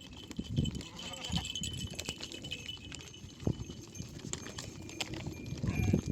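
Sheep on the move: a few dull hoof thuds, with a faint bleat about a second in.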